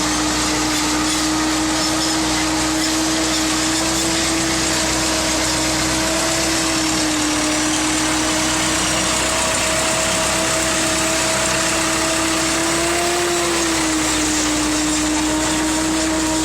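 A Kubota ME 9000 tractor drives a PTO-driven Fimaks row-independent silage harvester, with steady engine and machine noise. Over it runs a constant whine that holds its pitch, dipping and recovering slightly a few times.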